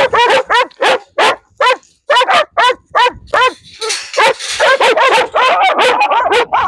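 Dogs barking and yipping in a rapid string of short barks, two to three a second, some overlapping, with a denser run of calls about halfway through.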